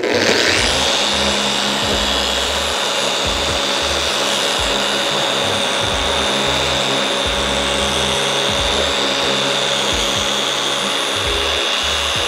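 Griot's Garage G9 random-orbital polisher running a damp 3000-grit foam sanding disc over a painted panel: the motor spins up with a rising whine at the start, then runs steadily with a high whine as the disc sands.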